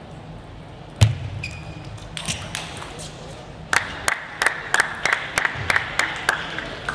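A table tennis ball bouncing repeatedly in an even rhythm, about three sharp ticks a second, for a couple of seconds. Before that there is one loud sharp thud about a second in, followed by a few lighter taps.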